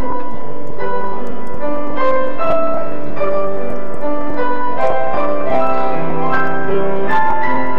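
Piano music, a run of notes and chords sounding one after another.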